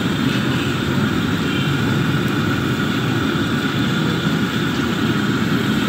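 Samosas deep-frying in a large karahi of hot oil, sizzling steadily over a continuous low roar.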